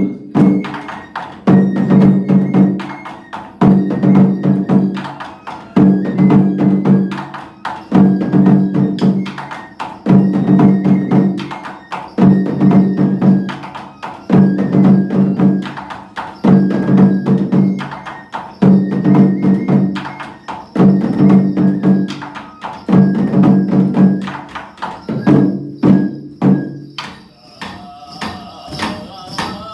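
Japanese festival dance music played on percussion: a short phrase of rapid drum and wood-block strikes repeating about every two seconds, the pattern changing near the end.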